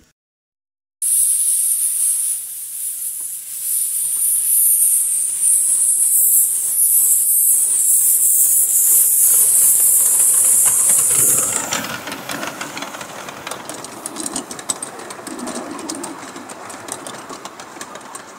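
Miniature live-steam locomotive hissing loudly with escaping steam as it moves off and passes close by, starting about a second in and lasting some ten seconds. The hiss then stops and the passenger cars roll past, wheels clicking rapidly over the track, fading as the train draws away.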